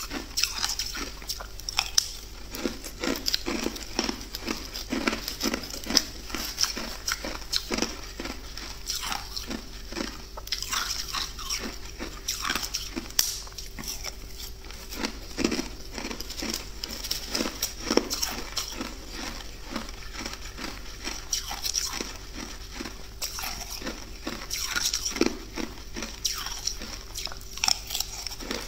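Close-up crunching and chewing of powdery freezer frost ice in the mouth: irregular crisp crackles and squeaky crunches with each bite, all the way through.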